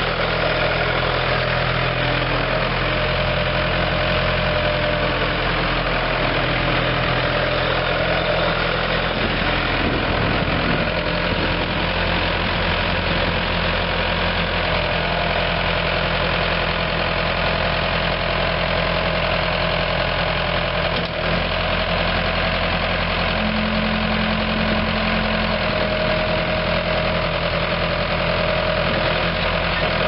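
Case 1845C skid steer's four-cylinder diesel engine running steadily as the machine drives and raises its loader arms. A higher steady tone comes and goes on top of the engine.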